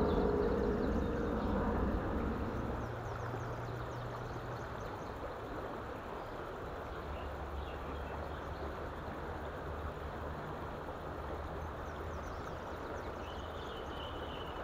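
Steady outdoor background of river water and a low traffic hum, louder for the first couple of seconds and then even.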